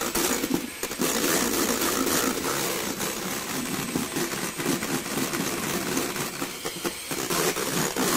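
Electric hand mixer running steadily, its twin beaters whisking egg whites in a stainless steel bowl, with frequent small ticks throughout, as the whites are beaten towards stiff peaks.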